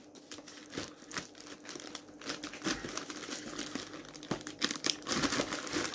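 A postal packet being opened and its DVDs pulled out: irregular crinkling and tearing of the packaging, busiest near the end.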